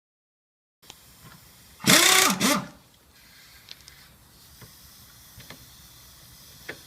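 A handheld power tool whirring in a short burst about two seconds in, its pitch rising and falling, followed by faint clicks and taps, with another burst starting right at the end.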